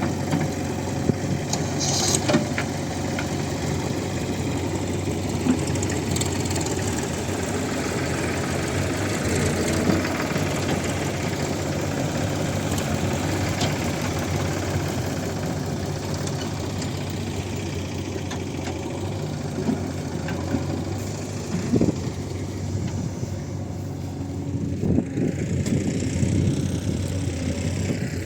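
Diesel engine of a backhoe loader running steadily while it loads soil, with a few short knocks, about two seconds in and twice near the end.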